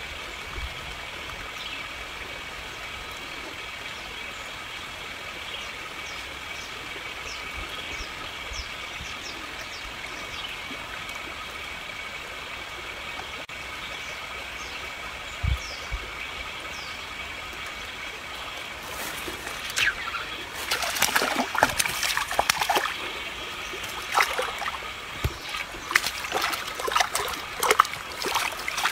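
Irregular splashing of water at the bank, starting about two-thirds of the way in and going on to the end, over a steady high background drone.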